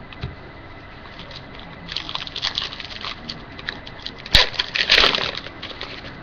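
Trading cards and their pack being handled: light rustling and sliding from about two seconds in, a single sharp click about four seconds in, then a louder rustle just after.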